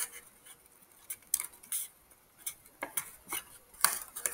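Paper handling: a scattering of short rustles and small taps as hands press and roll a glued paper cone.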